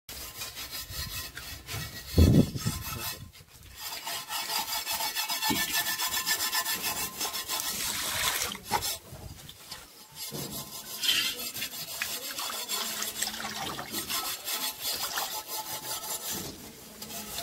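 Metal pots being scoured by hand: a steady, rough scraping and rubbing on metal, with a little water, and a loud knock about two seconds in.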